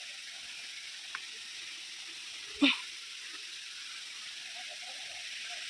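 Steady hiss of falling water from a waterfall, with one short, sharp louder sound about two and a half seconds in.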